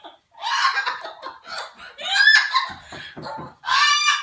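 Parrot calling in three loud, high-pitched bursts, about a second apart.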